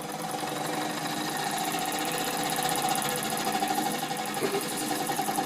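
Wilesco D455 live-steam toy engine running fast on its first steam after repair, with a rapid, even patter of exhaust beats and a faint steady hiss, getting slightly louder.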